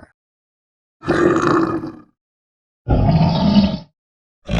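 Bear growling: two rough growls, each about a second long, with a short pause between them.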